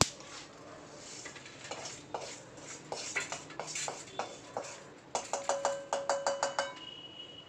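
A spatula scraping roasted dried red chillies, garlic and tamarind out of a kadai onto a plate, with scattered clinks. About five seconds in, the spatula is knocked rapidly against a rim: a quick run of about ten ringing taps.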